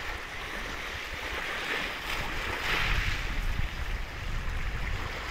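Small sea waves washing onto a pebble beach and drawing back over the stones, with a low rumble of wind; the wash swells a little louder about halfway through.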